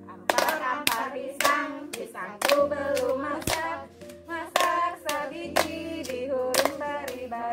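A group of women singing a hand-clapping game song while clapping palms with partners, about two claps a second.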